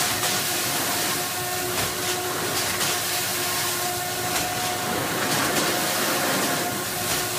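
Sigma Basic Compact automatic bread-bagging machine running: a steady mechanical hum with a constant air hiss, broken by short clicks and puffs at irregular intervals as loaves are pushed into bags.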